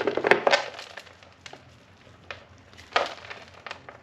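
Potting soil being dumped and broken apart by hand: a crumbly scraping rustle in the first half second, a few light knocks, and another scrape of soil about three seconds in.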